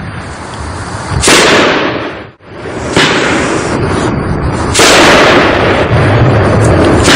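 A 500-gram aerial repeater fireworks cake firing shot after shot: four sudden bangs about one and a half to two seconds apart, each trailing off into a long rushing noise as the shells burst.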